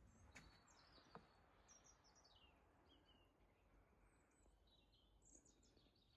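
Near silence, with several faint high bird chirps and two soft clicks about half a second and a second in.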